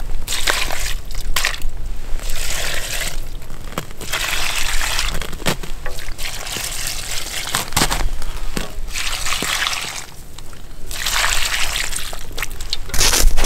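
Water poured from a pot into stainless steel dog bowls of feed, in about six pours of a second or two each with short pauses between them as it moves from bowl to bowl, and a few short knocks in the pauses.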